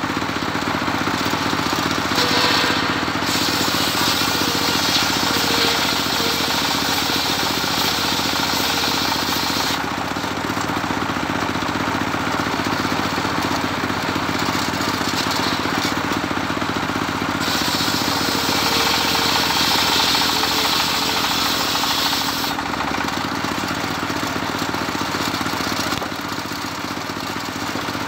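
Engine-driven homemade circular saw bench running steadily while its blade rips Medang timber. The hissing cutting noise swells over the engine twice, for several seconds each time.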